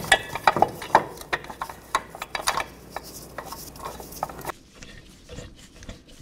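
Light metal clinks and clicks as bolts are threaded by hand into a steel engine-mount bracket. About four and a half seconds in, the clinking stops abruptly and fainter scattered ticks follow.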